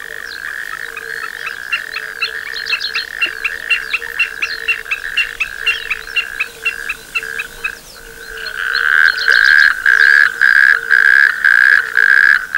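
Chorus of frogs and toads calling in a marsh: a continuous trill with a lower, broken note beneath and rapid high ticking calls about four a second. About eight seconds in, the chorus grows louder and pulses in even beats.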